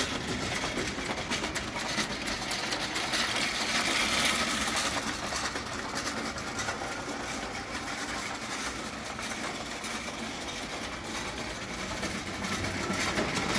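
Spirit-fired live-steam gauge 1 tinplate locomotive running on its track, a rapid steady clatter of its steam cylinders and wheels on the metal rails, loudest a few seconds in.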